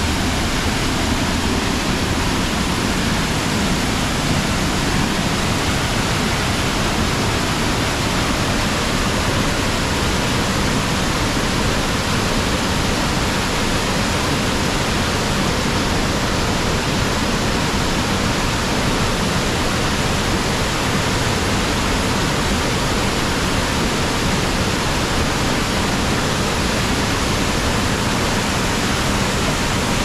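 Waterfall falling in four strands over a rock ledge into a plunge pool: a steady rush of falling and splashing water.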